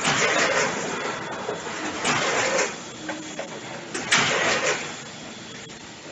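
Multihead weigher dosing granular tea: three times, about two seconds apart, hopper gates clack open and a rush of tea pours down the discharge chute.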